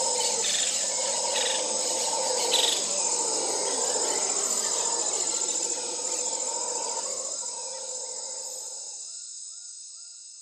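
Forest insect chorus: a steady, high-pitched buzzing drone that fades away over the last few seconds, with a faint repeated chirping near the end.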